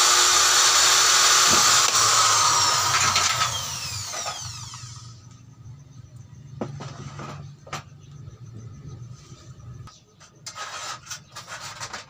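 A small handheld electric power tool runs at full speed for about three and a half seconds. It is then released and its whine falls away over the next second or two. After that come light scattered clicks and taps as an LED backlight strip is handled and laid on the TV's metal back panel.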